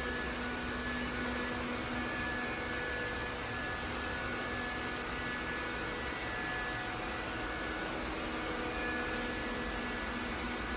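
Steady hum and hiss of background machinery, with a few faint held tones.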